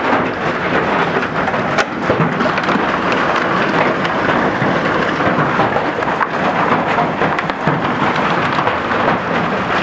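Large hail and a heavy downpour falling outside: a dense, steady rushing noise of rain with many sharp hailstone impacts scattered through it.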